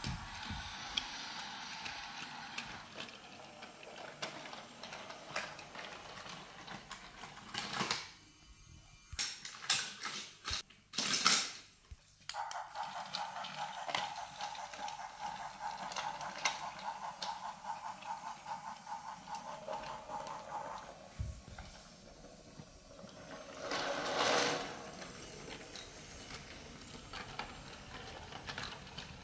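Battery-powered toy train's small electric motor and plastic gears whirring steadily as it runs along wooden track, with a fast ticking from its drive. A few sharp clatters come about a third of the way in, and a louder burst of noise comes near the end.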